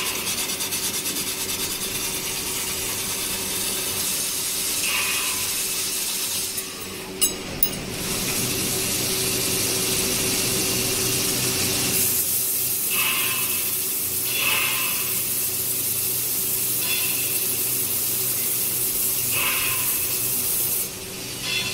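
Abrasive belt polishing head grinding against a steel pipe end, a steady rubbing hiss over a steady motor hum. Two sharp clicks come about seven seconds in, and the hiss grows louder about halfway through.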